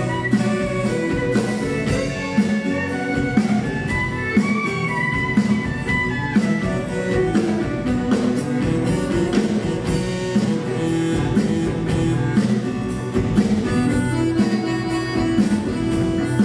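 Live Cajun music with no singing: a fiddle and an accordion playing a tune together over a steady beat.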